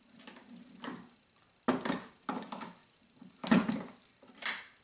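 A MEC 600 Jr. shotshell reloading press being worked to deprime and reprime hulls: a string of separate metallic clunks and clicks, the loudest three about a second and a half to two seconds apart.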